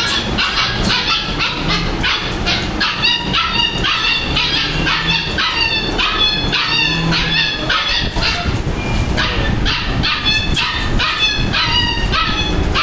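Shih Tzu puppies yelping and whimpering, short high-pitched cries coming quickly one after another, about two or three a second.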